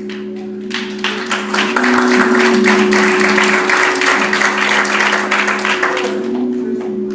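Congregation clapping, building about a second in and easing near the end, over background music holding long steady notes.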